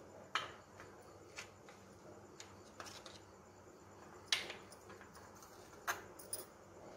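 A handful of faint, scattered clicks and taps of a spoon against a plate as syrup is spread over a cake, the clearest about four seconds in, over quiet room tone.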